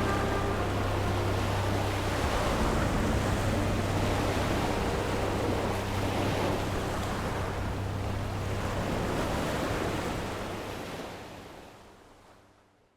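Black Sea surf washing onto a beach, a continuous rush of breaking waves. It fades out over the last two seconds.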